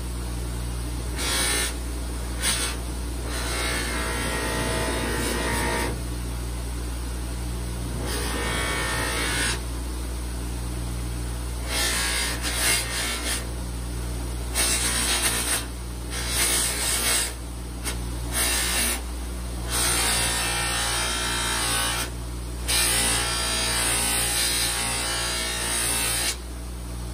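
Buffing wheel spinning on a bench motor with a steady hum, while a stabilized-wood knife handle is pressed against it in repeated passes, giving a rubbing hiss that comes and goes. This is the compound polishing stage that brings the handle to a high gloss.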